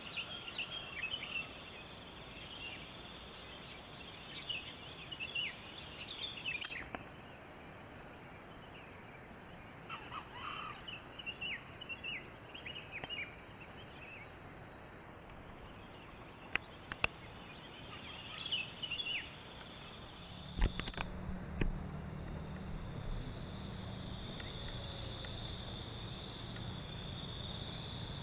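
Forest ambience: insects droning steadily at a high pitch, with birds giving many short chirps. Two sharp clicks come a little past the middle, and a low hum joins in the later part.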